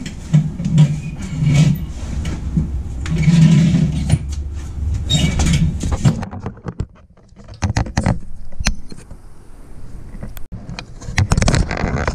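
Loose metal shock-mounting hardware being gathered by hand under a Jeep: muffled handling and shuffling noise, then from about halfway a series of sharp metallic clinks and knocks, busiest near the end.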